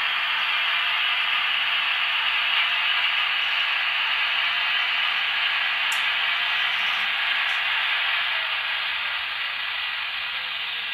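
A steady, even hiss with no engine note or rhythm, with two faint ticks about six and seven and a half seconds in.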